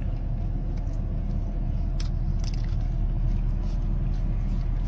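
A horse crunching a potato chip taken from a hand, with a few sharp crunches about two seconds in, over the steady low hum of an idling car engine.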